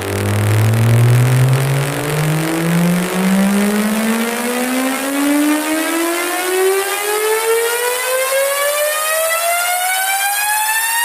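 Electronic synth riser in a DJ track: a buzzy, siren-like tone that climbs steadily in pitch in quick pulses.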